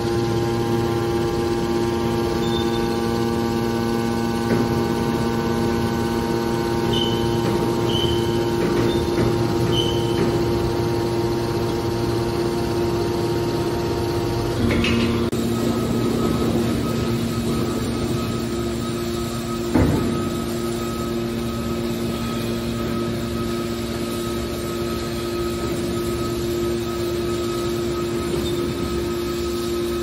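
Hydraulic power unit of a scrap metal baler, its electric motor and pump running with a steady hum and whine while the cylinders fold the press lid. A few short high blips come early on, the tone of the hum shifts about halfway through, and there is a single sharp knock about two-thirds of the way in.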